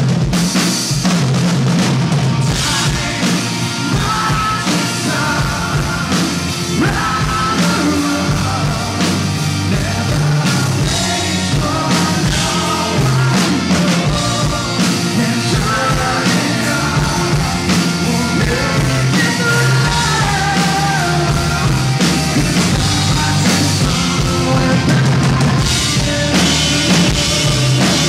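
Live rock band playing at full volume: drum kit, electric guitars and bass guitar, with a male lead vocal.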